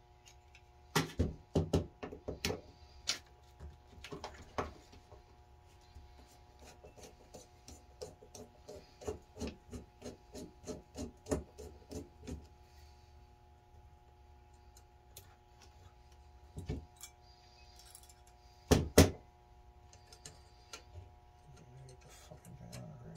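Metal parts of a two-barrel marine carburetor clicking and knocking as it is handled and put back together by hand: a cluster of sharp knocks near the start, then a run of lighter taps and clicks, and a loud pair of knocks after a pause, over a faint steady hum.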